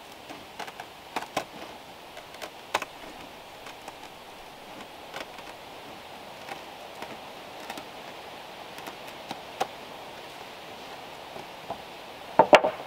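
Knife cutting through indoor-outdoor carpet on a board: scattered small clicks and rasps as the blade works along the strip, with a louder clatter near the end.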